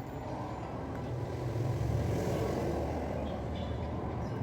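A motor vehicle passing on the road: engine hum and tyre noise grow louder to a peak about two seconds in, then ease off.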